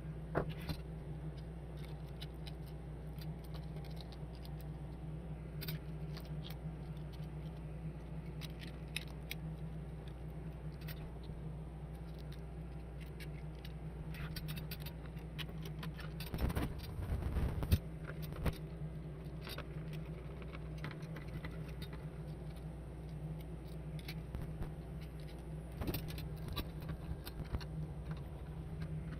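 Light scattered clicks, taps and rattles of a bench power supply's parts and casing being handled while it is put back together, over a steady low hum. A few louder knocks come a little past the middle.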